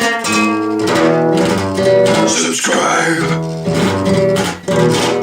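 Music: a strummed acoustic guitar playing chords.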